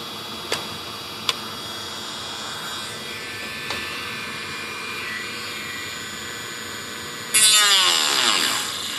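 A handheld rotary tool with a small cutoff disc whirring steadily, with two light clicks early on. About seven seconds in, the disc bites into the material with a much louder grinding that eases off near the end.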